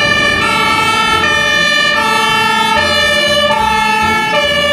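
Electronic two-tone fire-truck siren, switching back and forth between a high and a low note about every three-quarters of a second, over background music with a bass beat.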